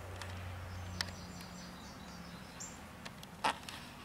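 Quiet outdoor ambience: a low steady hum with a few short, high chirps, and two brief sharp sounds, the louder one near the end.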